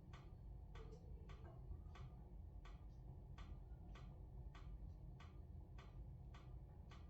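Faint crackling of a wood-briquette fire in a fireplace: sharp ticks about twice a second over a low, steady rumble.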